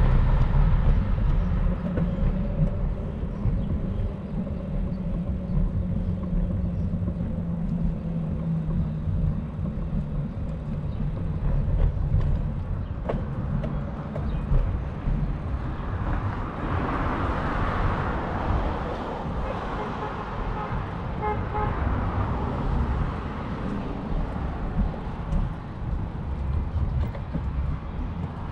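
Wind rumbling on the microphone during a bicycle ride, over the sound of city traffic. A brighter hiss swells and fades a little past the middle.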